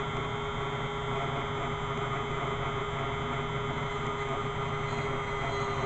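Dremel rotary tool running steadily with a constant hum, clamped in a vise while a knife edge is held against its spinning bit to sharpen it.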